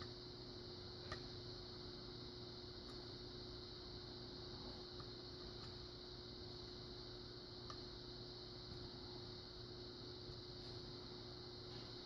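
Faint, scattered ticks of a rounded flag pick working the pins of a Kenaurd five-pin pin-in-pin lock under tension, the sharpest about a second in, over a steady hum.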